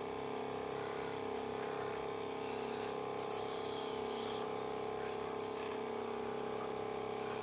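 Small electric motor of a home cotton candy machine spinning its heated sugar head, giving a steady, even hum.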